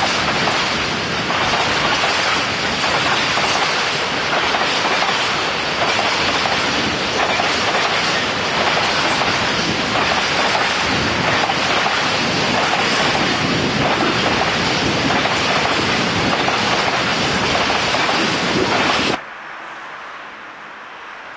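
Long freight train of bogie wagons rolling steadily past, a loud continuous rumble and clatter of wheels on rail. It cuts off suddenly about two seconds before the end, giving way to a much quieter background.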